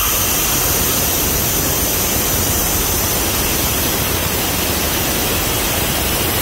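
Compressed air rushing out of the partly opened outlet of a Vanair 185 underdeck rotary screw compressor: a steady, loud hiss, which shows the compressor is pumping and building pressure.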